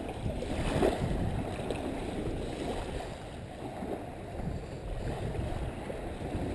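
Wind buffeting the microphone and water sloshing at the shoreline: a steady low rumbling noise with small splashy rises.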